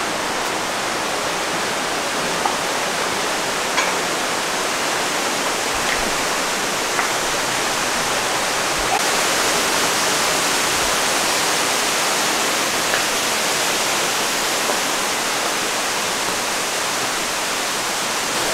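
Mountain torrent rushing through the gorge, a steady full roar of water with a few faint clicks on top.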